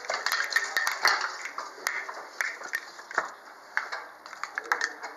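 Wooden handloom being worked: a quick, irregular clatter of clicks and knocks as the shuttle is passed through the warp and the reed beater strikes the weft into place.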